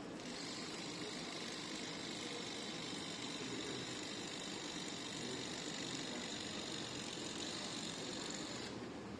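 A small electric hair-care device runs with a steady, high-pitched hiss. It is switched on just after the start and stops shortly before the end.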